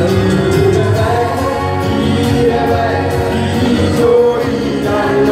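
A congregation singing a gospel hymn together, many voices at once, loud and unbroken.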